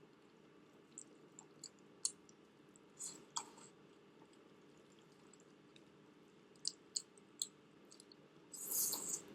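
Close-miked eating sounds: scattered wet mouth clicks from chewing, with a short, louder rustle of noise near the end.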